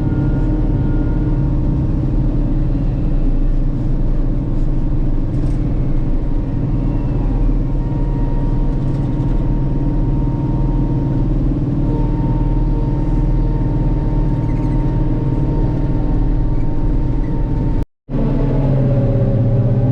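Diesel engine of a heavy farm machine running steadily on the road, heard from inside the cab as a constant low drone. The sound drops out for a moment near the end.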